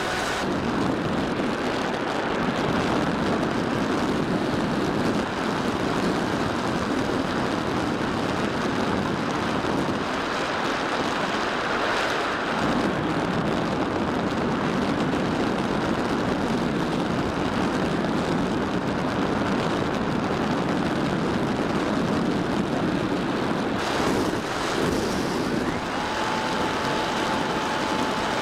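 Onboard sound of a Bixler 3 RC glider in flight: a steady rush of air over the airframe with its electric motor and propeller running. A faint steady whine comes in near the end.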